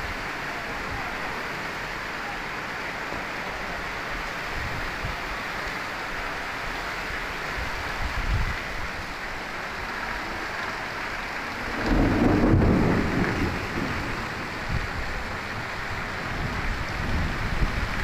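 Heavy rain pouring steadily, with a louder low rumble about twelve seconds in that lasts a couple of seconds.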